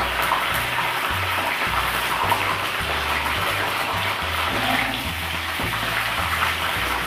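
Hot oil sizzling steadily in a kadai as batter-coated mushroom pieces deep-fry, with background music's steady low bass line under it.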